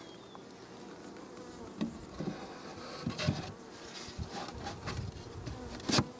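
Honey bees buzzing around an open hive, with a few light knocks and a sharp click near the end.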